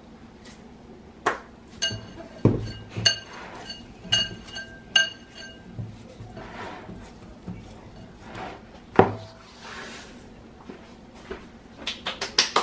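A glass bowl clinking and ringing briefly several times as it is knocked while pepper is shaken over raw ground beef in it, followed by soft squishing as the meat is worked by hand. A sharp knock comes near the end, then a quick run of small clicks.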